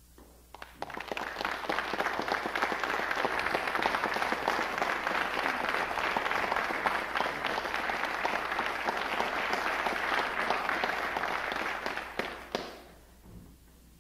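Audience applauding, swelling quickly about a second in and dying away shortly before the end.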